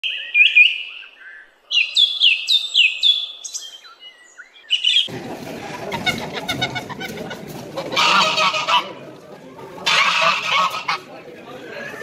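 Small birds chirping in quick, repeated, downward-sweeping calls for about five seconds. Then the busy background of a poultry market hall with caged fowl, broken twice by a loud, harsh call lasting about a second.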